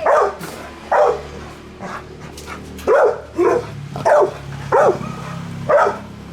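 A dog barking repeatedly, about seven sharp barks at uneven intervals, with a low steady hum underneath.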